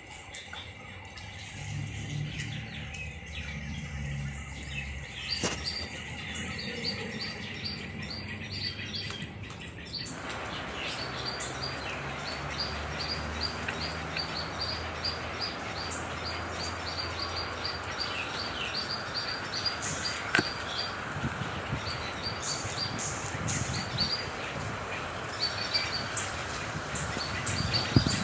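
Birds chirping with short, high, rapidly repeated calls, over a steady hiss of rain that comes in suddenly about ten seconds in.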